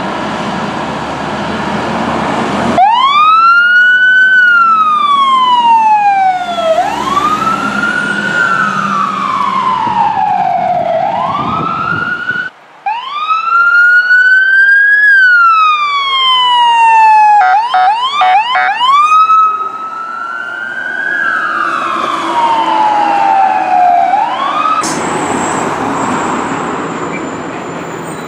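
Fire apparatus sirens wailing, each sweep rising quickly and falling more slowly, over and over, with a short run of rapid warbles about two-thirds of the way through and abrupt cuts between passes. The first few seconds and the last few hold only truck engine and road noise.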